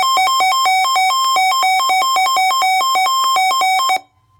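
Buzzy electronic beeping: quick notes hopping between two pitches in an irregular rhythm, like a simple synthesizer tune. It cuts off suddenly about four seconds in.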